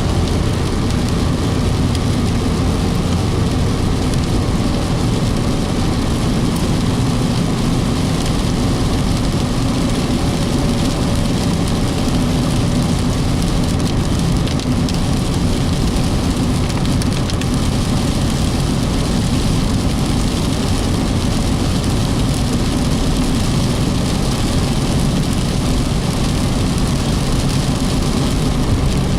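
Car driving steadily on a wet, partly flooded road: a low engine and road hum with a hiss of tyres on water.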